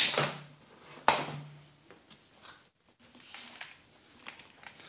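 Handling noise of a homemade plastic-bucket blender being taken apart to empty it: a sharp knock and scrape about a second in as the bucket is worked free of its drill mount, then faint plastic clicks and rattles.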